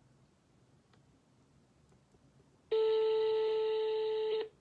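Phone ringing tone heard through a mobile's loudspeaker during an outgoing call: one steady beep of about a second and a half, starting past the middle and cutting off sharply.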